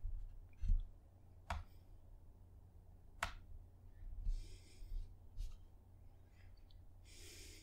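Two sharp computer mouse clicks, about a second and a half apart, as window columns are dragged to new widths, with faint breaths into a close microphone and a low rumble underneath.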